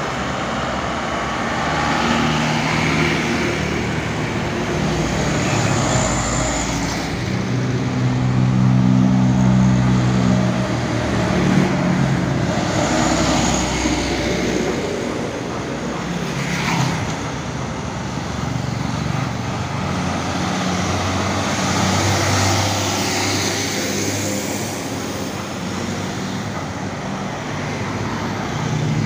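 Mixed road traffic passing close by one vehicle after another: a light box truck, cars and motorcycles, their engines and tyre noise swelling and fading as each goes past.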